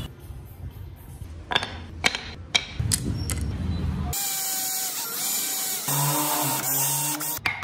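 A few sharp knocks of wooden pieces handled on a workbench, then a cordless drill running into a pine block for about three seconds before it cuts off sharply.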